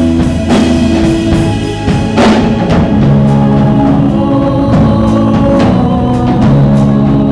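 Live rock band playing loud: drum kit with repeated cymbal crashes over held guitar and keyboard notes.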